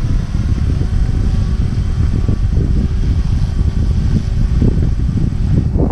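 Gusty wind buffeting the microphone with a loud, uneven rumble. Under it runs the faint steady whine of a SAB Goblin 380 electric RC helicopter in flight.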